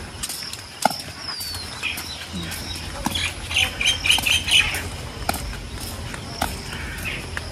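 Birds calling: a short falling whistle, then a quick run of about five high chirps a few seconds in, over a low rumble with a few scattered knocks.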